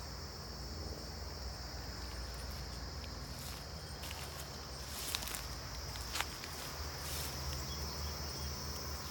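Insects chirring steadily in a high, unbroken buzz, over a low rumble, with two sharp clicks about five and six seconds in.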